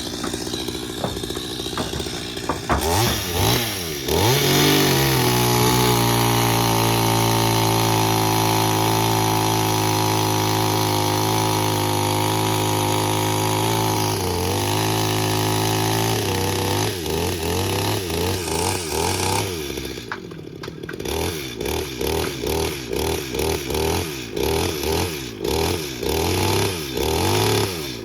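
Small petrol engine starting up about three seconds in and running steadily at high speed. After about sixteen seconds it is revved and let off in short bursts, roughly once a second.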